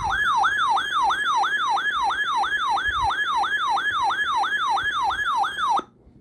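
Weather alert radio's electronic siren alarm sounding for a severe thunderstorm warning on NOAA Weather Radio: a loud, rapid warbling tone at about three sweeps a second that cuts off suddenly near the end.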